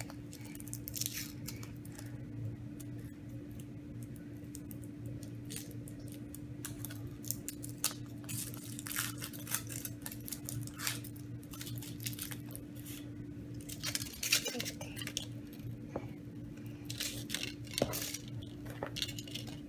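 Foil wrapper of a Kinder Surprise chocolate egg crinkling and tearing as small hands peel it off, in irregular rustles and crackles that come thicker in the second half.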